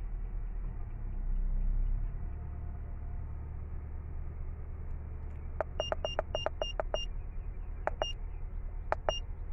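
Short high beeps from an Autel MaxiCheck scan tool as its keys are pressed to navigate the menus: six in quick succession a little past halfway, then two quick pairs near the end, over a low steady hum.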